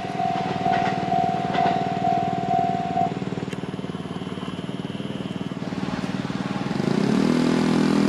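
Railroad crossing warning bell ringing in a steady ding-ding that stops about three seconds in, with road vehicle engines running under it. Near the end an engine revs up and gets louder as a vehicle moves off.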